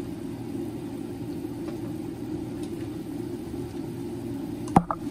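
Steady low rumbling hum of kitchen background noise while a pan simmers on a gas burner, with one sharp knock near the end.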